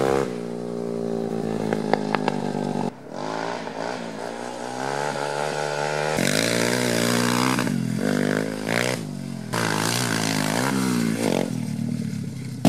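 Four-stroke pitbike engine revving up and down as it is ridden, its pitch rising and falling again and again with throttle and gear changes. A few sharp clicks come about two seconds in, and the level drops abruptly near three seconds and picks up again near six.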